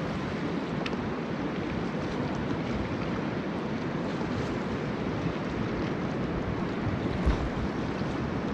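Fast, silty river water rushing steadily around a kayak, with wind buffeting the microphone in a few low gusts, the clearest a little after seven seconds in.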